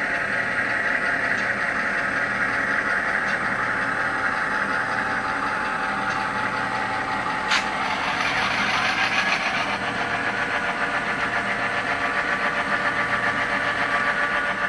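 Tsunami TSU-AT1000 sound decoder in a Kato NW2 model switcher playing a diesel locomotive's running engine sound through its small speaker while the model moves. A sharp click comes about halfway through, after which the engine sound pulses rhythmically.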